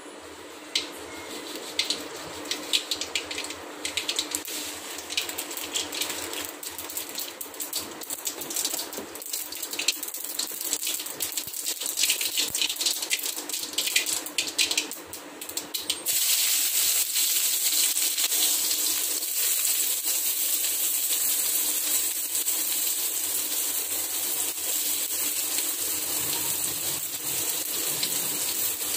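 Cooking oil heating in a steel kadai on a gas burner, crackling and spitting irregularly. About sixteen seconds in it turns into a steady, louder sizzle, with chopped onions, green chilli and curry leaves frying in the hot oil.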